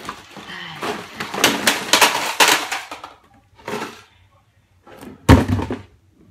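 Cardboard box being ripped open: a couple of seconds of loud tearing and crackling, a short rustle, then a single heavy thump about five seconds in.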